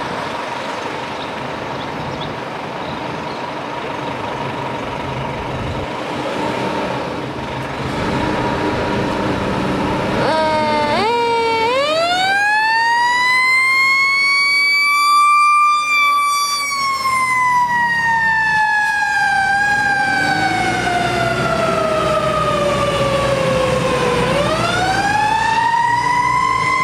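1998 Freightliner FL106/Pierce fire engine's diesel running as it pulls out. About ten seconds in, its siren starts with a few short rising chirps, then winds up into one long wail that peaks, falls slowly, and rises again near the end.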